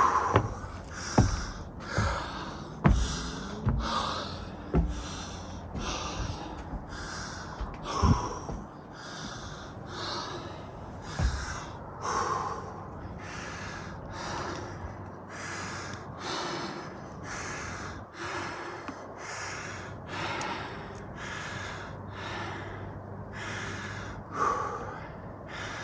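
A man breathing hard and fast while climbing a steep uphill trail, about one breath a second, close to the microphone. A few thumps in the first dozen seconds.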